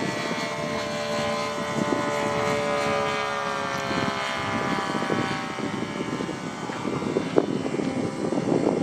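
Radio-controlled model airplane's motor and propeller running in flight, a steady buzzing drone whose pitch slowly falls over the first few seconds, with wind noise underneath.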